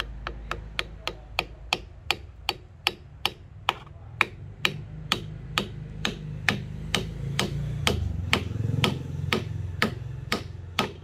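A hammer tapping a glued wooden wedge into the kerf at the top of an axe handle, driving it down to lock the axe head on. The light, sharp taps come evenly, about three a second.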